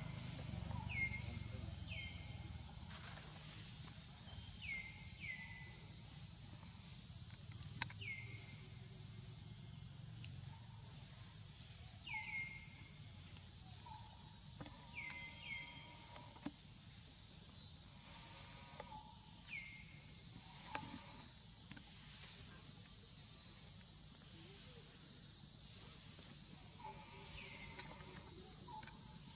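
Steady high insect drone, like cicadas or crickets, with about ten short whistle-like calls that drop in pitch and then level off, scattered irregularly, and a few single sharp clicks.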